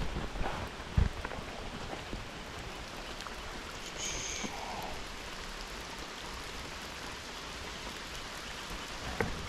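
Steady rain hissing down on creek water during a thunderstorm, with a short low thump about a second in.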